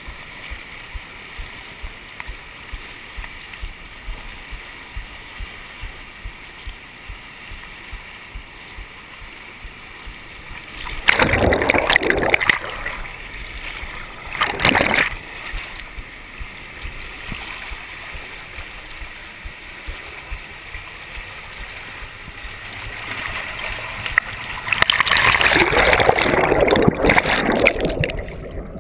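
Rushing river rapids heard through a GoPro's waterproof housing held at the water's surface, a steady wash with light regular ticks. Loud splashing surges break in about a third of the way through, again briefly soon after, and for several seconds near the end as the camera is swamped by whitewater.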